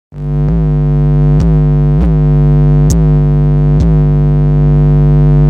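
Car audio system playing a loud, steady synthesizer-like tone with rich overtones, its pitch dipping briefly about five times.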